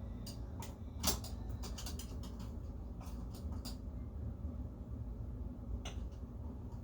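Scattered light clicks and knocks from objects being handled, the loudest about a second in and a last one near the end, over a steady low hum.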